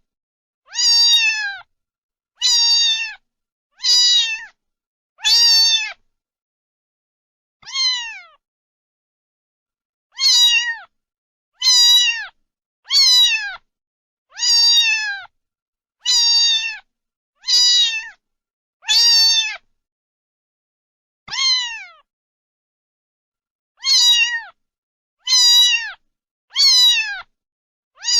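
A cat meowing over and over: about seventeen short, high meows, each falling in pitch at its end, with dead silence between them and longer pauses around a third and three-quarters of the way through.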